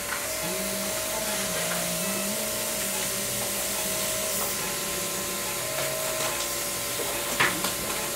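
Electrosurgical cautery unit sounding its steady activation tone while the cautery pencil cuts, in a long stretch of about four seconds and then briefly again, over a steady suction hiss. A sharp click comes near the end.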